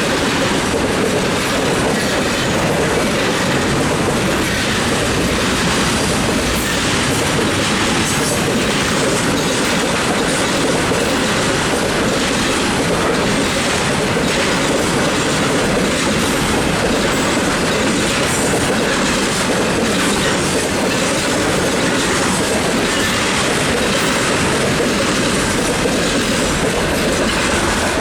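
Freight train of container wagons, hauled by a VL80S electric locomotive, rolling past at speed. Its wheels make a steady rumble with clickety-clack over the rail joints.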